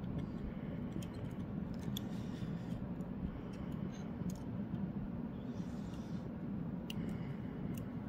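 Steady noise from an electric fan blowing across the workbench, with a few faint, short clicks scattered through it.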